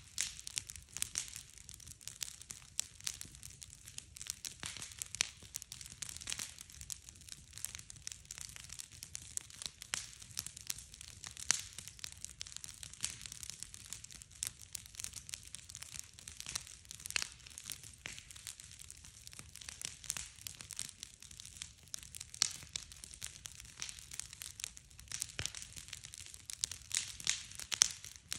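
Wood campfire crackling and popping irregularly, with several sharper pops standing out.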